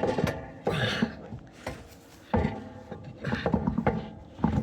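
Spare wheel being lifted and worked onto the wheel hub studs: a run of separate metal clunks and scrapes.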